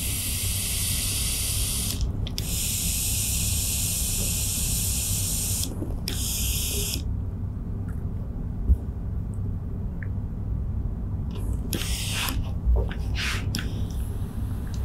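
Industrial hose-fed steam iron releasing steam as it presses fabric: a loud hiss in three long blasts over the first seven seconds, then a few short puffs later.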